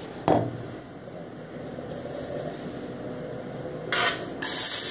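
Kitchen sounds at a gas stove with a pan heating: a sharp knock just after the start over a steady hiss, a short clatter about four seconds in, then a much louder high hiss near the end.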